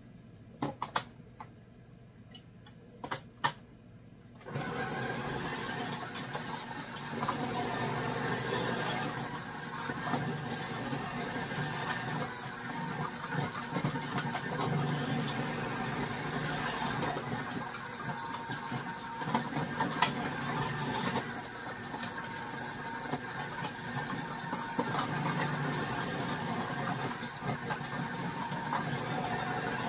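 A few sharp knocks of a knife on a cutting board as zucchini is cut. Then, about four seconds in, an electric food processor's motor starts and runs steadily, shredding zucchini pushed down its feed chute.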